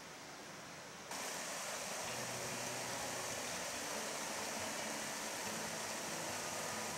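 Steady rushing of a fast river over rocks, a continuous even hiss that gets louder about a second in.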